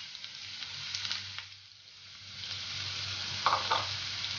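Chopped onions sizzling in hot coconut oil in a non-stick kadai, the hiss dipping briefly about halfway through. A couple of short knocks come about three and a half seconds in.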